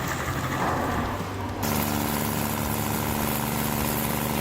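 Stump grinder engine running. About a second and a half in, the sound changes abruptly to a steadier, even engine note.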